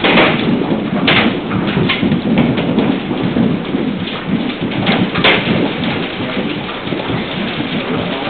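Hailstorm: a dense, steady clatter of hailstones striking the building, with sharper single hits standing out at the start, about a second in and about five seconds in.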